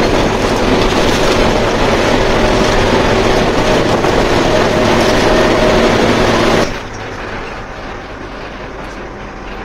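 Intercity coach running at speed, heard from inside the cab: a loud, steady engine drone over road and wind noise. About seven seconds in it drops suddenly to a quieter, duller run of the same noise.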